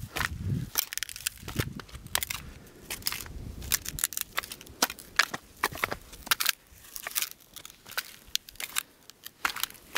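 Footsteps in sandals crunching over dry, crusted desert ground, with irregular sharp crackles as the surface crust breaks underfoot several times a second. A low rumble sits under the first few seconds.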